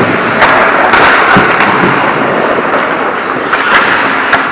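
Ice hockey play around the goal: skates scraping the ice with several sharp, irregular clacks of sticks and puck.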